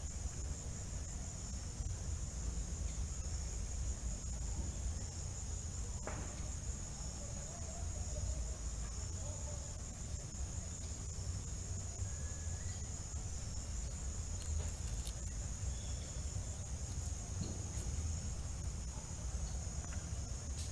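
Steady, high-pitched trilling chorus of insects such as crickets, with a low rumble underneath and a few faint bird chirps scattered through.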